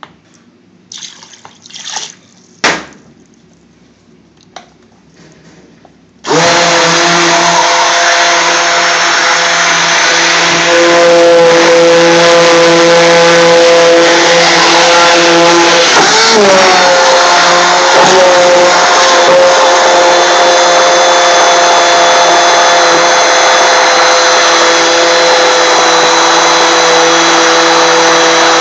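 A few knocks, then about six seconds in a heavy-duty stick blender starts with a sudden loud run and keeps going steadily, blending thick onion base gravy in a plastic bucket. Its pitch dips briefly and recovers about halfway through.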